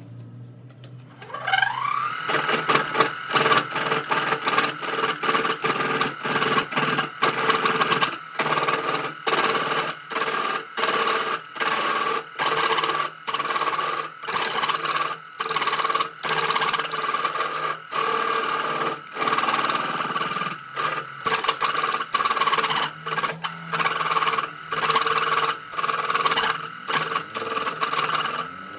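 Electric power tool spinning up to speed, then grinding or sanding wood in repeated strokes, the rasp breaking off briefly about once a second over the steady motor tone.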